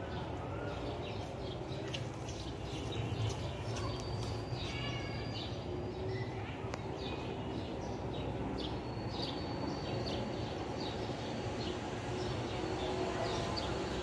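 Several birds chirping in the trees, many short high calls scattered all through, some drawn out into brief whistled notes, over a steady low rumble of background noise.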